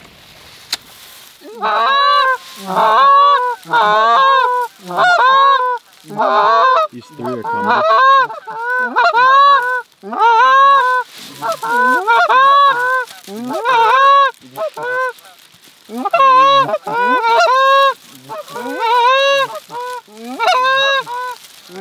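Geese calling: a long run of loud honks, each rising and falling in pitch, several a second in short clusters, starting about two seconds in.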